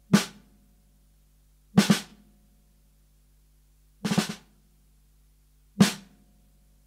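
Sparse intro-music drum hits, one heavy snare-and-kick strike about every two seconds, some doubled, over a faint steady low drone.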